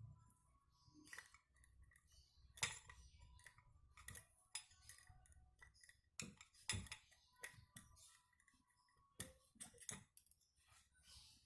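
Faint, scattered light clicks and metallic clinks of hand tools and small metal parts being handled, a few seconds apart at irregular spacing.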